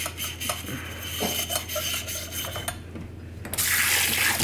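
A metal scrubber scraping in short strokes inside the stainless steel upper chamber of a Bialetti Kitty moka pot, scouring out the last of the old gasket. About three and a half seconds in, the kitchen faucet's sprayer starts running water over it.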